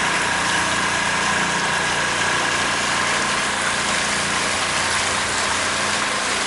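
Pontoon boat's outboard motor running steadily, a few steady tones over an even hiss.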